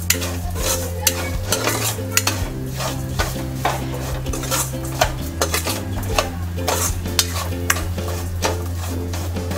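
Steel ladle stirring and scraping samo (barnyard millet) with diced potato and peanuts against a metal kadhai, with a light sizzle of the ghee as the grain roasts. There are many sharp scrapes, a few a second.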